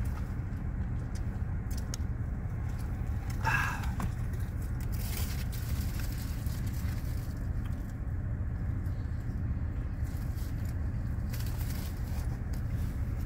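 Steady low rumble inside a parked car, with paper bag rustling and light wrapper clicks as food is handled. A short, louder sound comes about three and a half seconds in.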